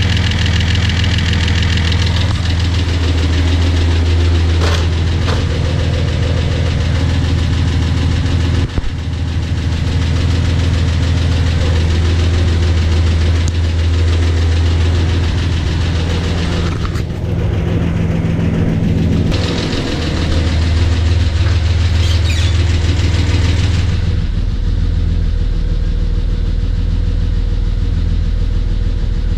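Datsun 280Z's rebuilt L28 inline-six idling steadily at about 800 RPM during its break-in run. Near the end it is heard from inside the cabin, deeper and more muffled.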